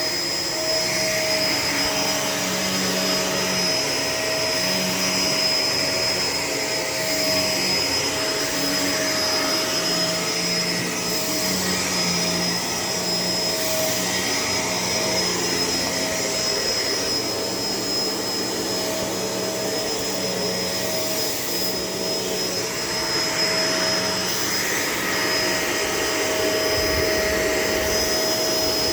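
Shark LA702 vacuum cleaner running steadily with a high whine, its lower hum breaking up and returning as it is worked over the floor.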